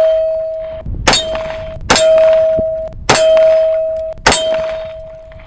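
Four shots from a SIG Sauer 1911 Scorpion pistol, about a second apart, each followed by the ringing clang of a steel silhouette target being hit that fades over about a second. The ring from a shot just before is still sounding at the start.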